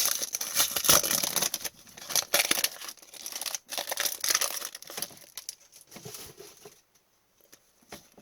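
A hockey trading-card pack wrapper being torn open and crinkled. It is loudest in the first couple of seconds, then gives way to lighter rustling that fades out about seven seconds in.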